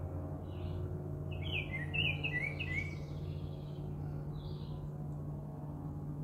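Wild songbirds chirping: a quick run of short, falling chirps about two seconds in, with scattered single calls around it, over a steady low hum.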